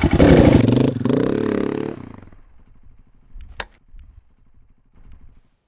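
Motorcycle engine revving, its pitch rising and falling, then dropping back about two seconds in to a quiet, even idle. A single sharp click comes midway through the idle.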